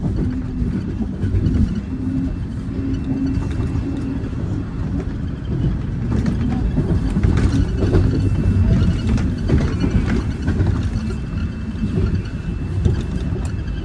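Toronto Rocket subway train on TTC Line 1 running at high speed, heard from inside the car: a steady low rumble with scattered wheel-on-rail clicks. A hum sits in the first few seconds and a faint high tone runs above it.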